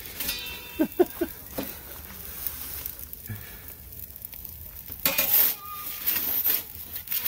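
A metal pizza peel scraping and rasping against the baking stone of an Ooni Koda propane pizza oven as the pizza is pushed back and turned, in a few short strokes, the busiest about five to seven seconds in. A faint steady hiss runs underneath.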